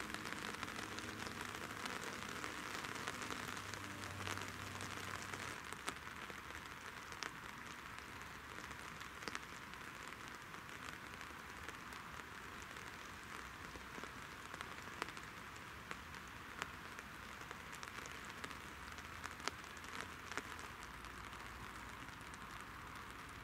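Steady rain falling on lake water: an even hiss with scattered sharper ticks of single drops.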